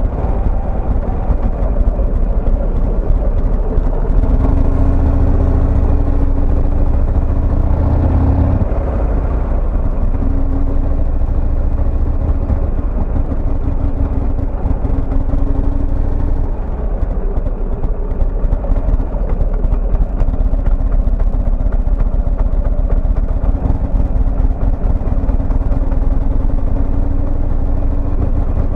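Buell XB12Scg's air-cooled V-twin engine running steadily while riding, its note rising briefly about eight seconds in.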